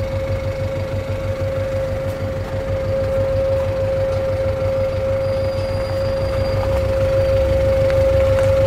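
Engine idling, with an even low pulsing and a steady whining tone above it. It grows a little louder toward the end.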